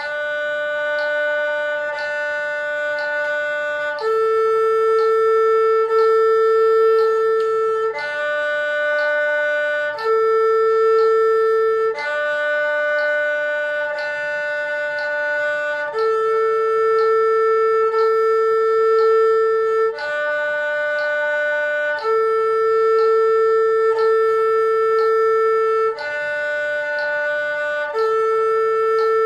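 Erhu playing a slow full-bow exercise on its two open strings, D and A, each note held for two beats at 60 beats a minute so it changes every two seconds. A faint tick sounds once a second.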